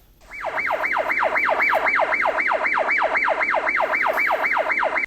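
Police-style siren sound effect: a fast yelping siren, each sweep falling in pitch, about three and a half sweeps a second, cutting off suddenly at the end.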